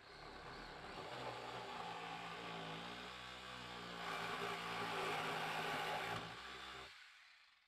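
Handheld corded electric power tool switched on and cutting into the edge of the ceiling, a steady motor whine that gets louder and harsher as it bites about four seconds in, then switched off and winding down near the end.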